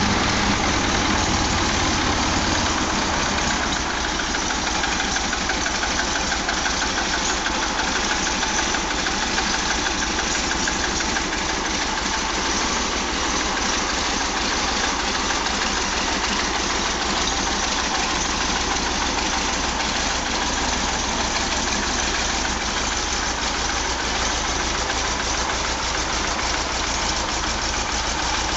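Farmall Cub's four-cylinder flathead engine running steadily just after starting, a little louder for the first few seconds and then settling into an even idle. The engine is freshly rebuilt with new piston rings and bearings.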